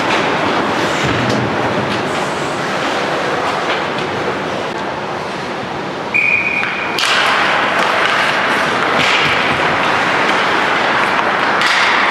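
Ice hockey arena sound during a game: a steady wash of rink and spectator noise. About six seconds in there is a brief high tone, and about a second later play resumes with louder skate scraping and stick clatter on the ice.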